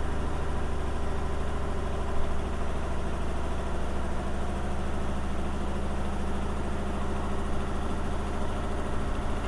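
Washing machine spinning its drum in the final spin cycle, still speeding up but not yet at full speed, with a steady low hum.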